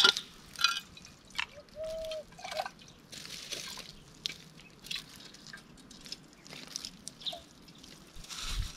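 Water dribbling and dripping from the hose of a hanging water bag into a cooking pot as it is rinsed, in short irregular splashes.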